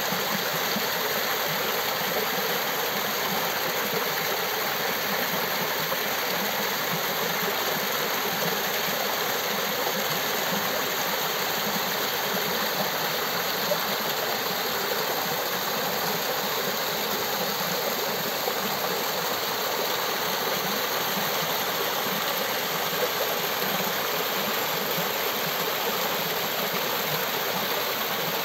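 A small waterfall pouring down between boulders and splashing over rock: a steady rush of water that does not change.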